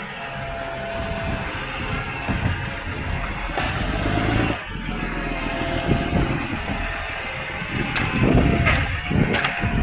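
Garbage truck's diesel engine running, on a truck with an exhaust leak, with a short steady whine coming and going and a few sharp clicks near the end.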